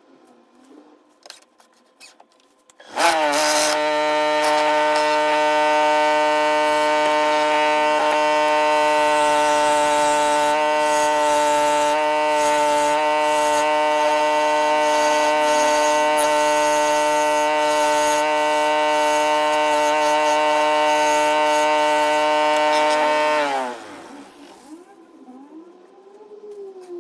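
Electric power tool motor spinning up quickly, running at a steady high speed with an even whine for about twenty seconds, then winding down.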